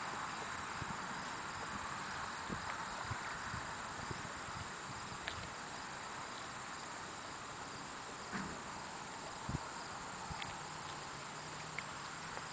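Steady high-pitched insect hiss from a grassy field, with a few faint scattered clicks and crunches from Weimaraners chewing tomatoes and green peppers.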